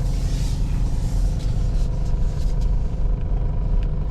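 Steady low rumble inside the cabin of a 1999 Toyota 4Runner on the move: its 3.4-litre V6 running under road noise. The engine has just had new spark plugs and plug wires and is running smoothly.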